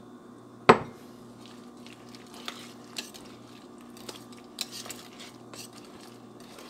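Wire whisk working milk into thick mashed potatoes in a stainless steel saucepan, its wires clicking against the pot's sides now and then, with a squelchy stirring sound. A single sharp knock, the loudest sound, comes just under a second in. A steady low hum runs underneath.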